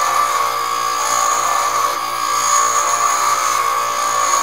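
Bench grinder wheel grinding an M2 cobalt high-speed-steel lathe toolbit held by hand against it: a steady, loud grinding hiss over a constant whine.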